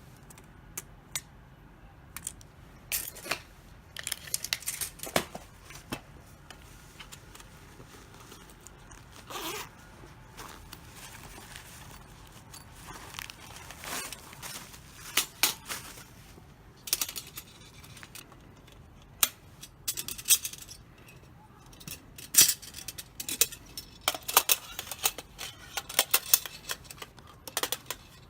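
Handling noises from a small metal fire stand and its packaging: irregular clicks, light metallic clinks and short rustling scrapes, in clusters.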